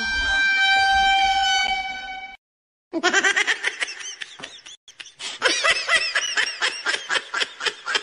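Two comedy sound effects in a row. First a held horn-like blast with many overtones, ending about two seconds in. After a short gap comes a fast string of high, squeaky cartoonish pulses, about five a second.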